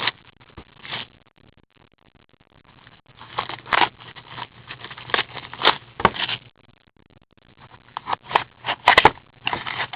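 Trading card packs being torn open and the cards handled: wrappers crinkling and cards scraping in short, irregular bursts with a couple of brief quiet gaps.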